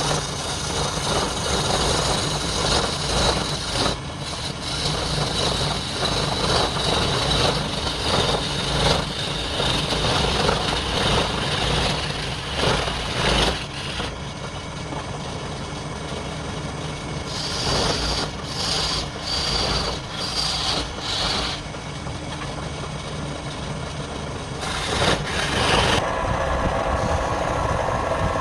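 Wood lathe running with a steady motor hum, while a turning tool or abrasive works the spinning wood with a rough hissing scrape. The scrape changes character abruptly several times, at about 4, 14 and 26 seconds in.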